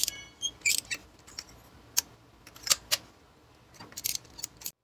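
Hand ratchet on an extension and 5/8 spark plug socket clicking in short, irregular bursts as it is worked counterclockwise to loosen a spark plug, with a brief metallic ring right at the start.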